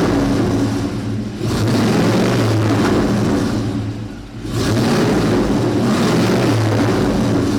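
1999 Blazer's exhaust, through a switchable Chameleon muffler set to its open race position, revved hard three times in long pulls with short dips between, giving the aggressive open-exhaust tone.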